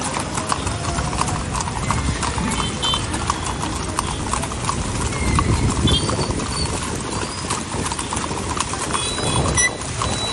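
Hooves of several horses walking on a hard, wet paved road: many overlapping clip-clops with no break between them.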